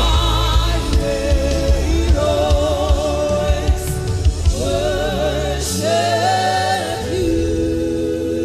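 Live gospel worship music: voices singing long, wavering notes over a band with a steady low bass.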